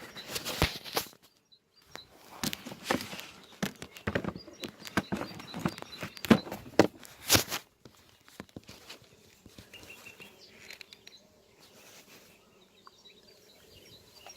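Irregular knocks and rustles for about seven and a half seconds, then a quieter stretch with faint birds chirping.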